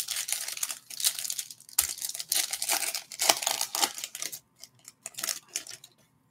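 Foil trading-card pack wrapper being torn open by hand: a dense run of crackling rips and crinkles, thinning to a few light crinkles near the end.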